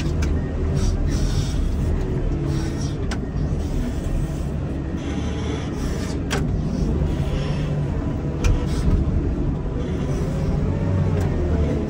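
Komatsu wheel loader's diesel engine running steadily, its pitch shifting a little, with a few sharp clicks or knocks.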